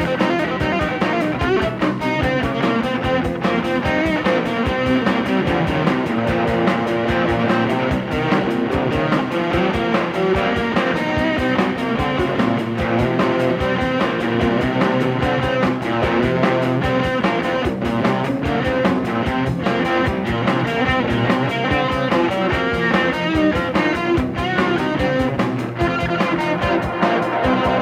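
Rock band recording playing an instrumental passage without vocals, led by guitars, at a steady loud level.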